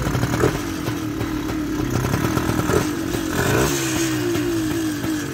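Motorcycle engine running, its pitch wavering and rising in several short steps in the second half, with a few light clicks.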